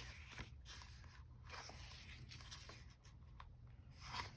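Faint rustling and light ticks of paper sticker sheets being handled, over a steady low room hum.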